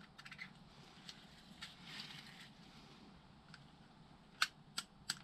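Faint handling noise from motorcycle rear suspension linkage bearings being turned by hand: a few light clicks, a soft rub about two seconds in, and three sharper clicks near the end.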